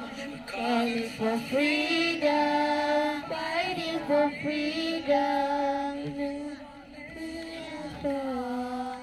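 A group of young girls singing a nasyid together, holding long notes that bend and slide between pitches.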